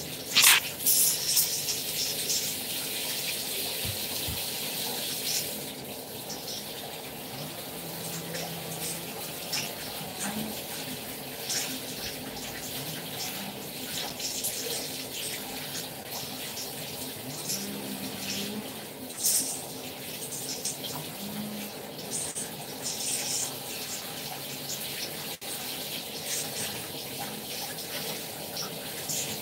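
Water running from a tap and splashing as shampoo is rinsed out of hair, a steady hiss with a couple of sharp knocks about a second in.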